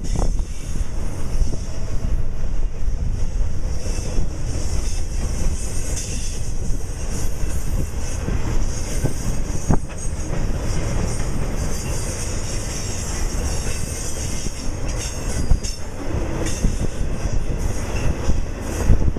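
Union Pacific freight train's cars rolling past, a steady rumble of steel wheels on rail with some wheel squeal and scattered clicks of wheels over rail joints.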